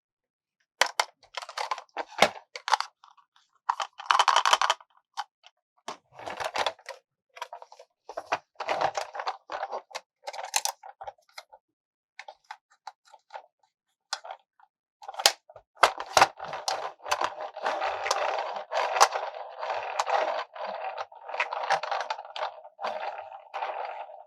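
Hands handling a plastic Lightning McQueen toy car: scattered taps and clicks, then from about fifteen seconds in a denser, continuous run of scraping and rustling.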